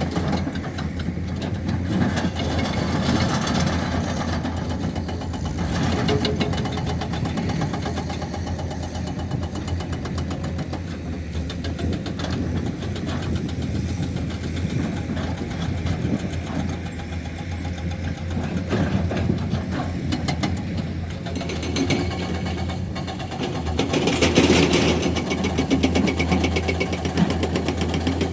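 Heavy diesel engine running steadily with a low, pulsing rumble. A louder, noisier stretch comes near the end.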